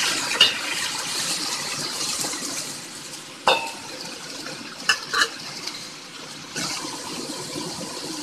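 Sliced bitter gourd and tomatoes sizzling in a hot wok while a spatula stirs them, with sharp clinks of the spatula against the pan shortly after the start, about three and a half seconds in, and twice in quick succession about five seconds in. The sizzle is stronger at first, eases in the middle and picks up again near the end.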